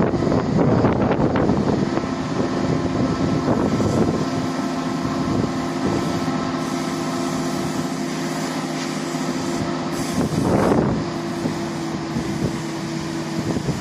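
Rice combine harvester's engine running steadily while its unloading auger empties grain through the boom into a truck, a constant hum with several held tones. About ten seconds in, a brief louder, noisier swell rises over it.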